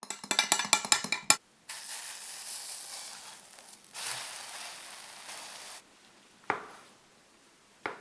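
A quick run of sharp clattering taps, then egg mixture sizzling in an oiled frying pan in two stretches as the egg sheet is rolled up. Near the end, two single knocks of a knife cutting through the egg roll onto a wooden cutting board.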